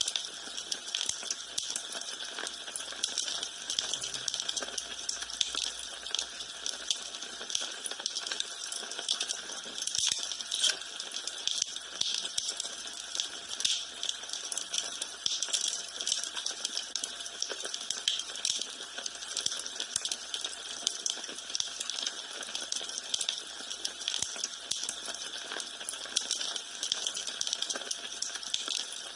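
Wood fire burning in a fireplace, crackling steadily with dense small pops and snaps.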